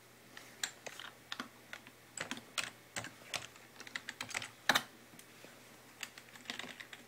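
Computer keyboard keys pressed in quick, irregular taps, one tap louder than the rest a little past the middle. The keys are being hit during the PC's startup, at its power-on password prompt and on the way to the boot menu.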